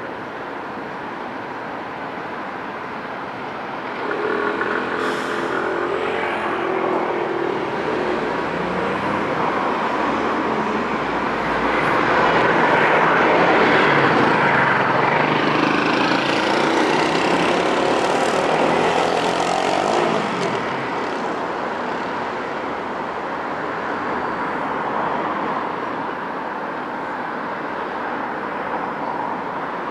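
Road traffic passing on a street, with the noise of a vehicle swelling through the middle and easing off about twenty seconds in.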